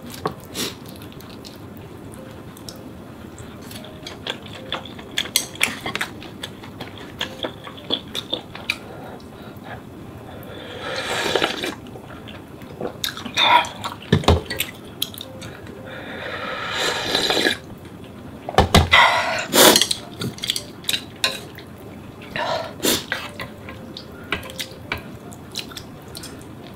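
Close-up eating sounds: chopsticks and a ladle-spoon clinking against an aluminium ramen pot and bowl in scattered sharp clicks, with a few longer wet slurps of ramen noodles and broth in the middle.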